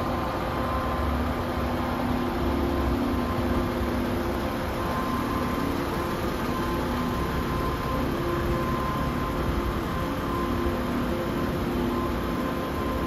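The Paccar 460 bhp Euro 6 diesel engine of a DAF XF106 tractor unit idling steadily: a low rumble with a few faint steady tones that swell and fade.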